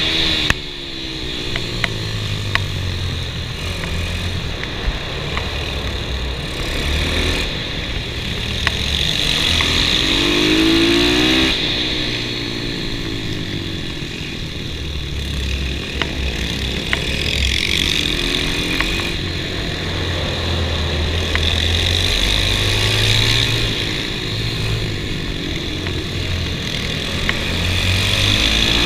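Kawasaki KLX110 mini bike with a 143 cc big-bore kit, its single-cylinder four-stroke engine revving up on the straights and dropping off into the corners, over and over, heard from on the bike itself.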